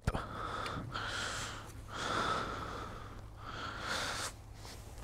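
A man breathing audibly: four long breaths of about a second each, with short gaps between them.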